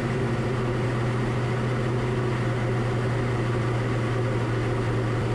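Diamond DA40's engine and propeller running steadily in cruise flight, heard inside the cockpit as an even, unchanging drone.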